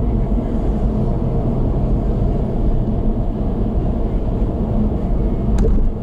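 Steady low road and tyre rumble of a car cruising on an expressway, heard from inside the cabin, with one brief knock near the end.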